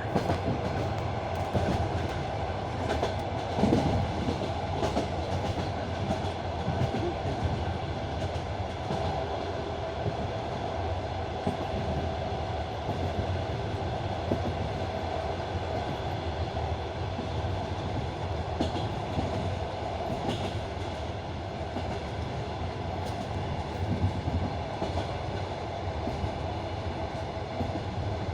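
Passenger train running, heard from inside the carriage: a steady rumble with the clatter of the wheels over the rails and an occasional louder knock.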